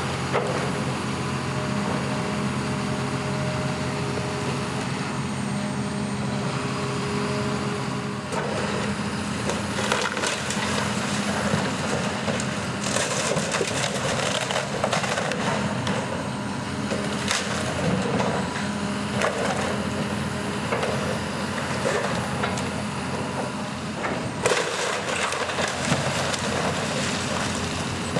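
Wooden timbers cracking, splintering and crushing as a structure is torn down, over the steady running of heavy demolition machinery's engine.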